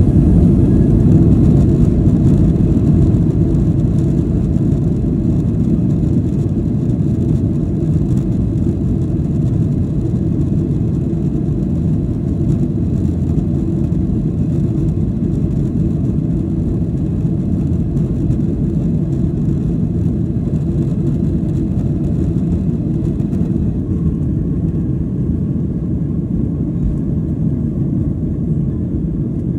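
Cabin noise of a Boeing 737 climbing after takeoff: a steady low rumble of the engines and airflow that slowly gets quieter, with the higher hiss dropping away near the end.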